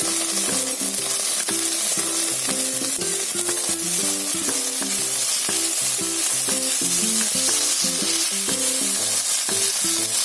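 Chicken strips and ginger-garlic paste sizzling steadily in hot olive oil in a non-stick wok while being stirred.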